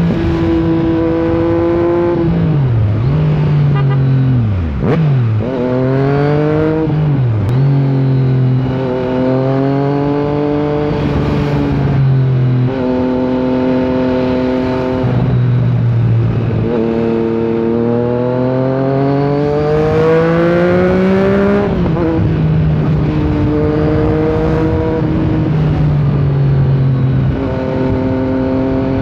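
Yamaha MT-09 inline three-cylinder motorcycle engine under way, rising in pitch as it accelerates and dropping at each gear change, several times over. A couple of deeper dips show it slowing almost to idle and pulling away again.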